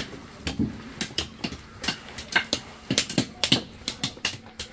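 Raw cashew nuts being cracked open by hand, a small hammer striking the nuts on a stone: a quick, irregular run of sharp taps, several a second.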